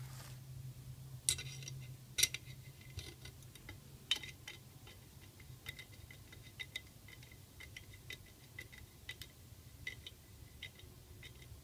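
Screwdriver turning a small screw into the metal bracket of a Stirling engine kit while pliers grip the nut, giving a run of light, irregular metallic clicks and ticks, a few sharper ones in the first couple of seconds.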